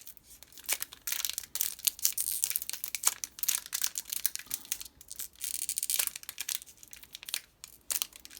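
Foil wrapper of a Yu-Gi-Oh! Cosmo Blazer booster pack crinkling and tearing as it is worked open by hand, in clusters of crackles with short pauses.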